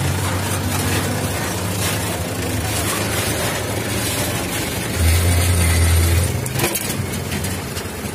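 Diesel dump-truck engine running under load as it slowly tows a loaded sand truck whose rear axle has broken. The engine note swells louder for about a second around the middle, then settles back.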